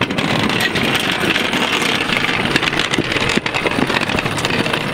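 Steel floor jack rolling across concrete with a truck rear axle on it: a steady rumbling rolling noise with many small rattling clicks.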